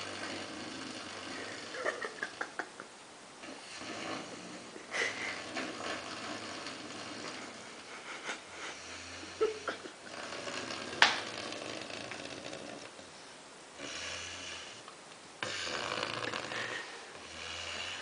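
Doberman snoring in deep sleep: long noisy breaths every few seconds, with a few short clicks about two seconds in and one sharp click about eleven seconds in.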